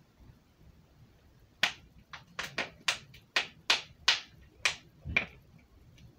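Plastic water bottle with the water inside mostly frozen, crackling and clicking as it is tipped up and gripped to drink from it. About ten sharp, irregular clicks come over roughly three and a half seconds, starting a second and a half in.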